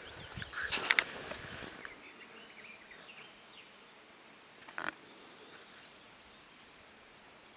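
Clicks and rustling as the fishing rod is handled, easing off after about two seconds. Then quiet riverbank ambience with faint bird chirps and one sharp click about five seconds in.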